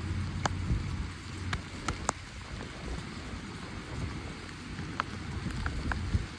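Steady rain falling on a wet wooden deck and harbour water, with scattered sharp taps of drops landing close by.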